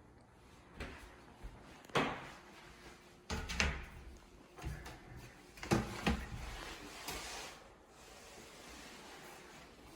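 A series of separate knocks and clunks, like doors or cupboard doors being opened and shut.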